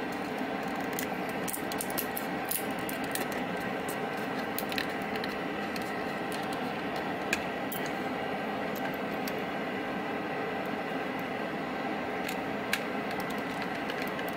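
Light clicks and taps of tweezers and a small screwdriver on the plastic shell of a Logitech Anywhere MX mouse as it is put back together. The clicks come in a cluster in the first few seconds, then singly, over a steady background hum.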